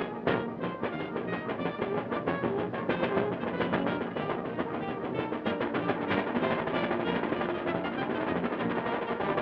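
Instrumental background music with a brisk, steady beat.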